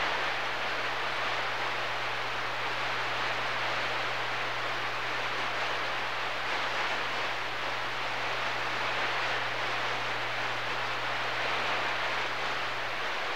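CB radio receiver on the 11-metre band at 27.025 MHz, hissing steadily with open-squelch band static and a constant low hum, no station coming through.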